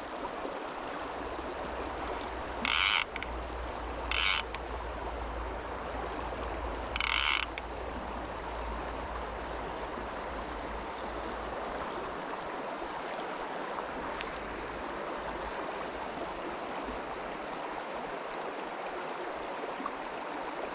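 Small mountain stream rushing steadily, with three short bursts of a fly reel's click-pawl ratchet in the first eight seconds as line is pulled off the reel.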